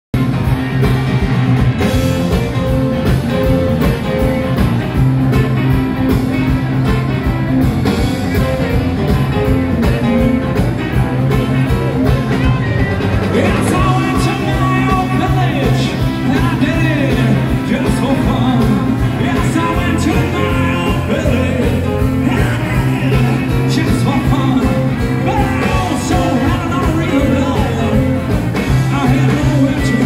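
Live blues-rock band playing, with electric guitars, keyboard and drums, and a singer's voice over them.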